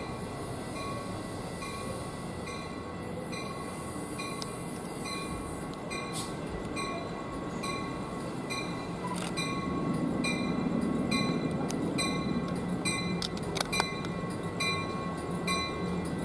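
A bell rings at an even rhythm, about one and a half strikes a second, over the low rumble of a passenger train drawing slowly into the station. The rumble grows louder in the second half, and a few sharp clicks come near the end.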